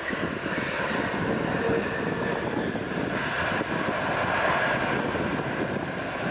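Boeing 787-10 airliner's twin jet engines running during its landing touchdown and rollout, a steady dense jet noise that swells somewhat in the middle.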